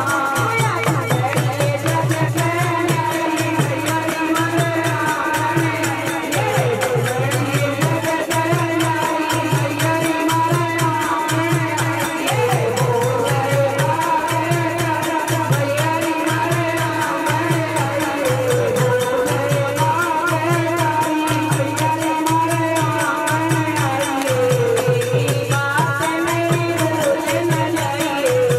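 A woman singing a traditional Haryanvi folk bhajan into a microphone over a steady drum beat.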